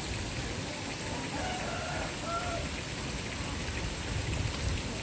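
Steady, even, rain-like hiss of outdoor background noise, with a few faint, brief distant calls about one and a half to two and a half seconds in.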